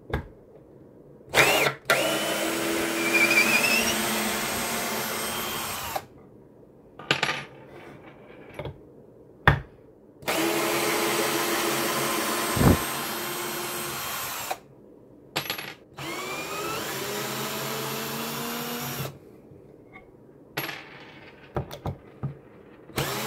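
KIMO 20V cordless drill backing long wood screws out of a 2x4. The drill runs in separate spells of three to four seconds, its motor rising in pitch as each one spins up. Clicks and a sharp knock come between the runs as the bit is set on the next screw.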